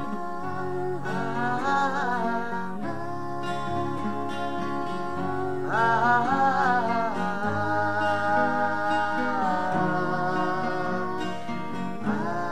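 Background music: a steady accompaniment under a melody of long, wavering held notes, which come about a second in and again about six seconds in.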